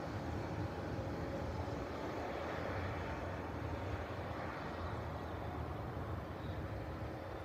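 Amtrak passenger train pulling away, a steady low rumble that slowly fades as it recedes.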